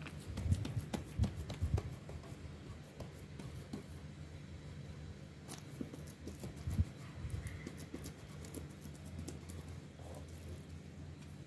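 Hands pressing, folding and rolling soft dough on a floured steel tray: soft pats and scrapes with occasional light taps on the metal, busiest in the first couple of seconds, with a sharper knock about seven seconds in. A low steady hum runs underneath.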